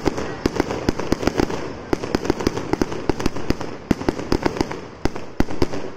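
Ground-launched fireworks spraying sparks: a continuous hiss broken by rapid, irregular sharp cracks, several a second.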